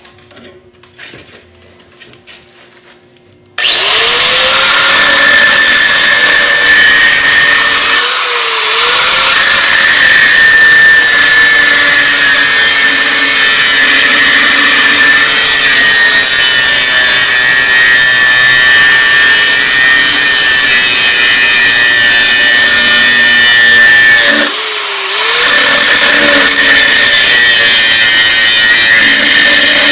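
Angle grinder with a cutting wheel switched on about three and a half seconds in and grinding into the edge of a weld on a steel tractor frame, a loud steady high whine. Twice the sound briefly drops and dips in pitch before picking back up.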